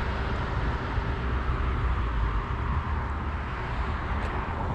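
Steady road traffic noise from cars passing on a busy street, with a low rumble underneath.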